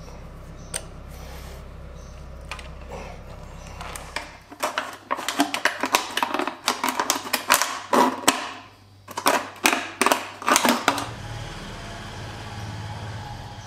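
A quick, irregular run of clicks and light metallic clinks from hands and pliers working loose the brass ring of a Massey power hammer's sight-glass gauge, over a low hum at the start and end.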